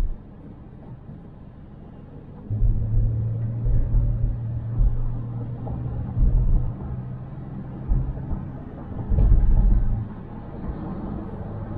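Car driving on city streets: low engine and road rumble, with a steady low drone a couple of seconds in that fades out around eight seconds, and a louder burst of rumble about nine seconds in.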